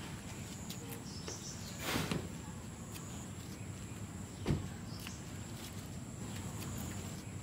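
Steady high-pitched insect trilling, with a sharp knock about two seconds in and a dull thump about four and a half seconds in as a charpai is lifted and moved.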